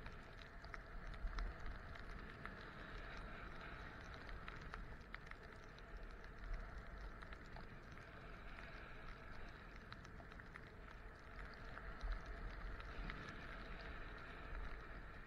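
Skis sliding over packed snow: a steady hiss with many small crackles, with a low, pulsing wind rumble on the microphone.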